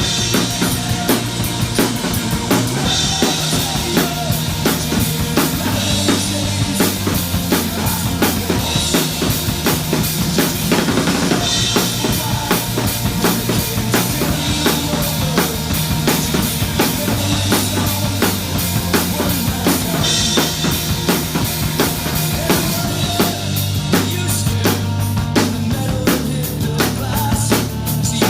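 Drum kit played in a steady, driving punk-rock beat with snare and bass drum, over a recorded rock band track with bass and guitars.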